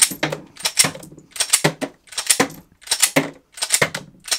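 Glock 43 pistol's slide racked by hand about seven times, roughly every three-quarters of a second, each cycle a sharp metallic clack as a live 9mm round is extracted and ejected from the Shield Arms Z9 9-round magazine.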